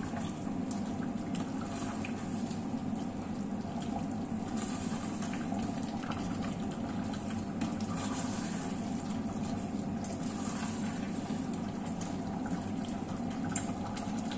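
Chicken stew in a thick tomato sauce simmering in a steel stockpot on the stove: a steady bubbling hiss, with a few faint spoon clicks as it is stirred.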